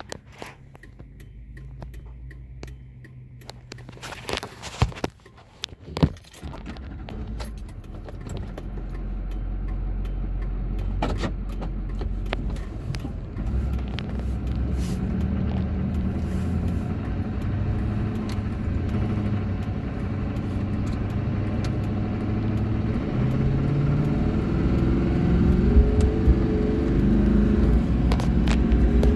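Duramax diesel V8 of a 2002 Chevrolet Silverado pickup heard from inside the cab on a test drive. The engine and road noise build as the truck gathers speed, and the engine pitch climbs in steps near the end. A few handling knocks and clicks come in the first several seconds.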